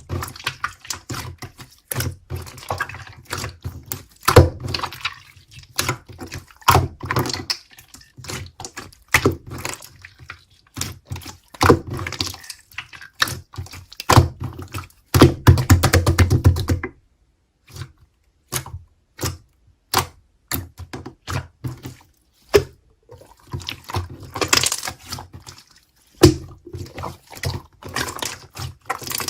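Slime being squeezed and poked by hand: a run of sticky wet clicks and small air-bubble pops, thickest about halfway through, thinning to a few scattered pops for several seconds, then picking up again.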